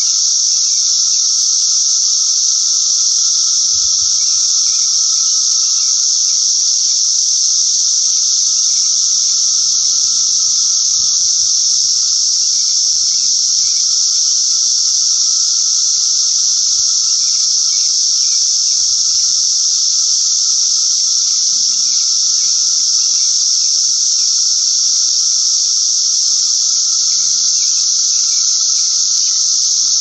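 Brood X periodical cicadas singing: a loud, steady, unbroken high-pitched drone with a fainter lower tone beneath it.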